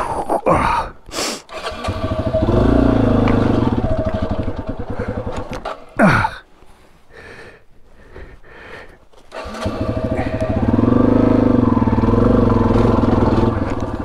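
Yamaha XT250's single-cylinder four-stroke engine revving in uneven bursts under load on rough ground, falling to a low, pulsing idle for a few seconds midway before pulling again. Several sharp knocks stand out, the loudest about six seconds in.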